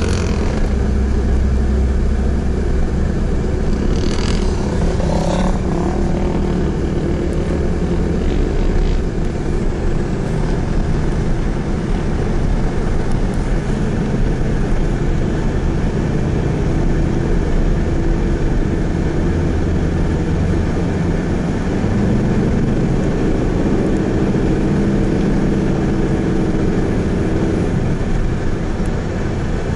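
Steady running of vehicle engines as pickup trucks tow a stuck Jeep through soft sand, with a brief higher-pitched sound about four to six seconds in.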